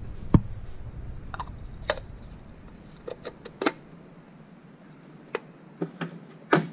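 Scattered light clicks and knocks of metal parts being handled as a fuel filter is seated in its housing and a billet aluminium filter cap is fitted, about ten in all with the sharpest near the start and near the end.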